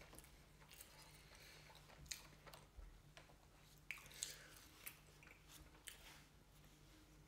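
Faint chewing and mouth sounds of a person eating, with a few short sharp smacks or clicks, over a faint steady low hum.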